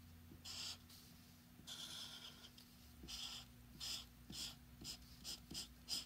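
Faint strokes of a marker pen rubbing across paper while colouring in: a few separate strokes at first, then quicker ones, two or three a second, in the second half.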